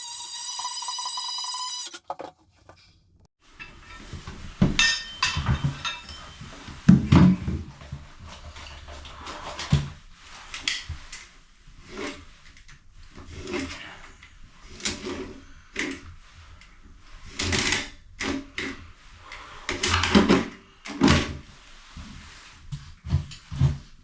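A steady electronic beep for about two seconds, cutting off sharply. Then, after a short pause, comes a long run of irregular knocks, clunks and rattles of hard objects being handled and set down in a small room.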